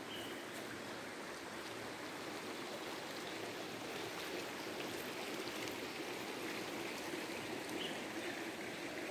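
River water running steadily over rocks, a little louder in the second half.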